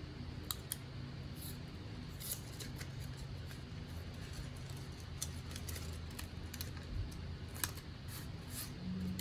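Scattered small clicks and scrapes of hands handling packaging during an unboxing, over a steady low hum.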